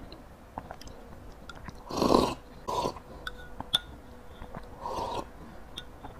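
Slurping sips of a purple-rice fermented rice wine (jiuniang) and yogurt dessert drunk from a glass mug: a long slurp about two seconds in, a short one right after, and another about five seconds in, with small clicks of a metal spoon against the glass between them.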